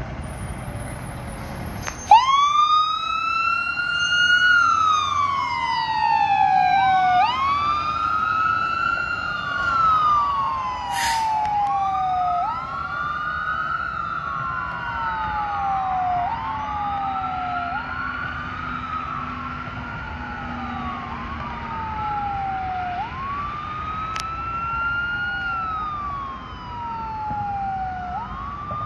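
Fire engine siren on a 2019 Pierce Impel pumper, coming on suddenly about two seconds in and then wailing over and over, each cycle rising quickly and falling away over two or three seconds. It grows a little fainter as the truck drives off.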